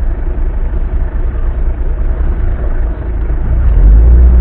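Off-road car's engine running at idle, heard from inside the cabin, then getting louder about three and a half seconds in as it is revved to pull away.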